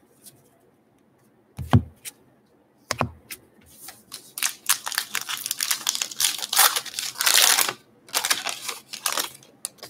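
Two thumps on the wooden tabletop, then a 2020 Topps Gypsy Queen baseball card pack's wrapper being torn open and crinkled for about five seconds.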